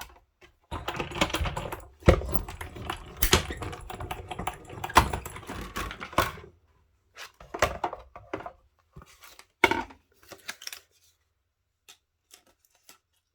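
Manual die-cutting machine being cranked, the cutting plates and die passing through its rollers with dense clicking and rattling for about six seconds, followed by scattered single clicks and taps as the plates and die are handled.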